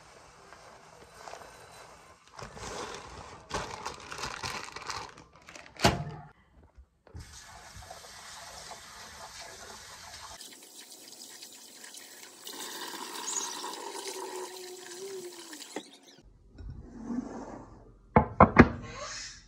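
Dry rice poured into a glass bowl, then tap water running into the bowl as the rice is rinsed by hand. Near the end, a few sharp knocks.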